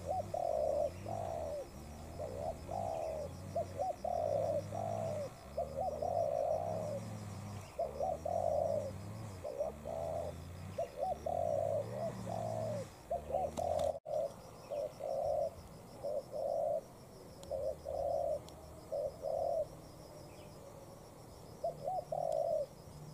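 Spotted doves cooing in a long run of repeated short phrases, one after another.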